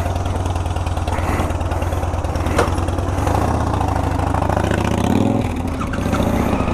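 Motorcycle engines running with a low, steady beat as the bikes set off, with one sharp click about two and a half seconds in.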